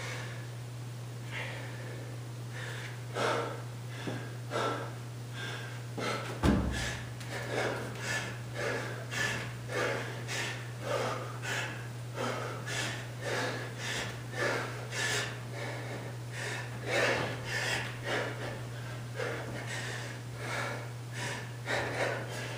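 A man breathing hard from exertion while resting and then doing pull-ups: spaced breaths at first, then quick, even breaths about one and a half a second. There is a single thump about six and a half seconds in, and a steady low hum underneath throughout.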